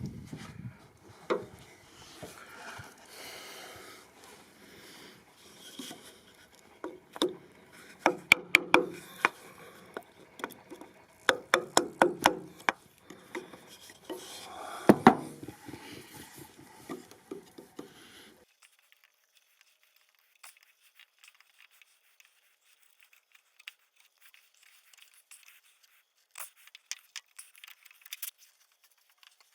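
Chisel working the edge of a wooden door to deepen the latch hole so the latch sits fully in: scraping with clusters of sharp taps. It stops abruptly about two-thirds of the way through, leaving only a few faint ticks.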